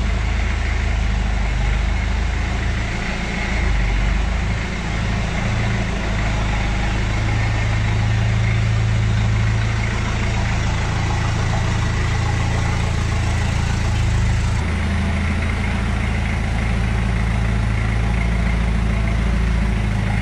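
Toyota Hilux's 3.0 turbo-diesel engine running steadily at idle as the truck creeps slowly forward in low gear.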